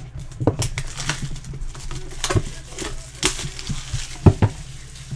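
Plastic shrink-wrap crinkling and tearing as it is stripped off a sealed cardboard trading-card box, with a few sharp knocks of the box against the table near the end.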